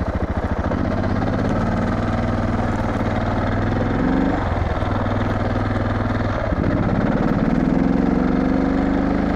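Suzuki DR650 single-cylinder four-stroke motorcycle engine running on a dirt trail, with the low, even firing pulses of a big single at low revs. The engine note breaks abruptly twice, about four and six and a half seconds in, getting louder at the second, then rises steadily in pitch near the end as the bike accelerates.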